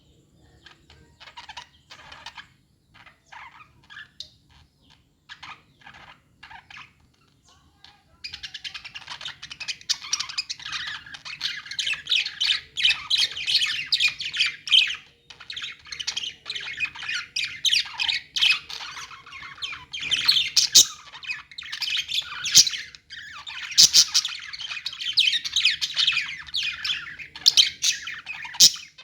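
A flock of caged budgies chirping and squawking: scattered short chirps at first, then from about eight seconds in a dense, continuous chattering chorus.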